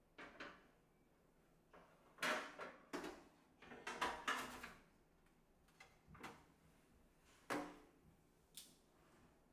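A baking dish being set into a countertop oven and shifted about inside it: a string of separate knocks and clatters of the dish against the oven's tray, the loudest about two to four and a half seconds in.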